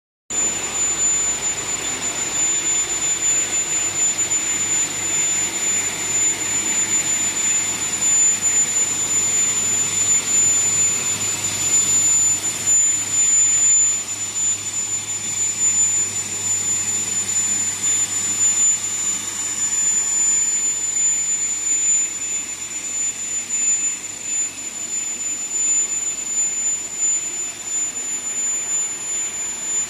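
Egg washing, drying and breaking line running: a steady mechanical whir and hiss with a constant high-pitched whine, a little quieter from about midway on.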